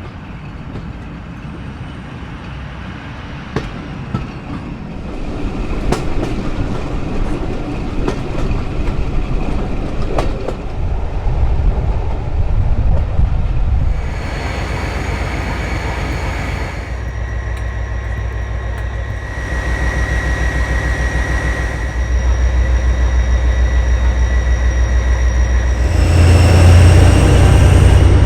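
A Class 57 diesel locomotive's 2,500 hp General Motors engine working hard under load. It gets louder in several steps as power builds, and high steady whistling tones join in about halfway. A few clicks of wheels over rail joints come in the first part.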